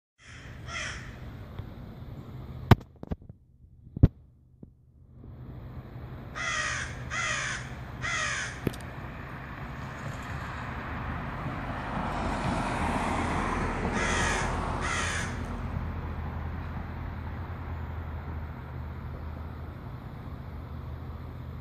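A bird calling in short, harsh calls: two near the start, three about six to eight seconds in, and two more around fourteen seconds in. Two sharp clicks sound about three and four seconds in, and a broad whoosh swells and fades between twelve and fifteen seconds.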